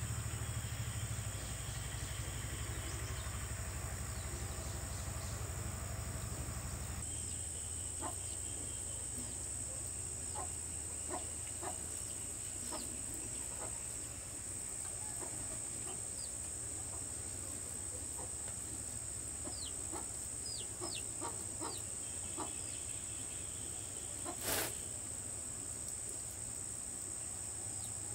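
Farmyard chickens clucking and giving short falling peeps now and then, over a steady high insect whine. Scattered light clicks, and one sharp knock about 24 seconds in; a low hum sits under the first several seconds.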